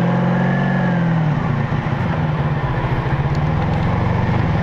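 A 1985 Honda Magna 700's V4 engine running with a fast, even firing beat. It rises slightly in pitch in the first second, then runs steady.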